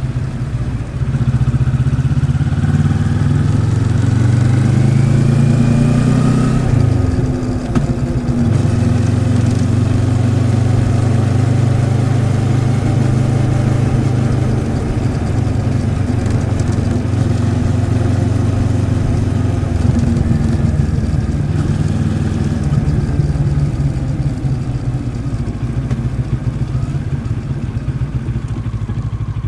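Moto Morini X-Cape 650's liquid-cooled parallel-twin engine under way: the pitch rises under acceleration for several seconds, drops sharply at a gear change about seven seconds in, then holds steady and eases off near the end.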